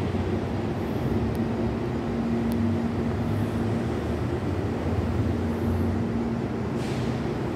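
Electric commuter train standing at a platform, its onboard equipment humming steadily with a low tone, with a brief faint hiss near the end.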